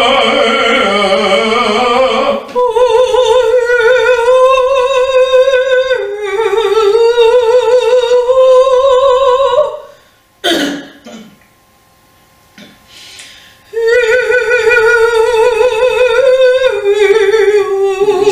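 A woman singing a folk-song melody on open vowels without words, in long held notes with vibrato, with the tongue kept flat. There are two phrases with a pause of about three seconds between them, and a short breath or click at the start of the pause.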